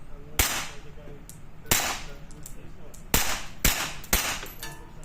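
Glock pistol firing paint marking cartridges: five sharp, light shots, two spaced over the first two seconds, then three in quick succession about half a second apart.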